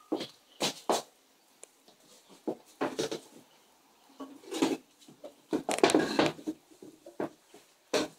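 Light, irregular knocks and clatters of kitchen things being handled and set down, with a denser, louder cluster of knocks about six seconds in.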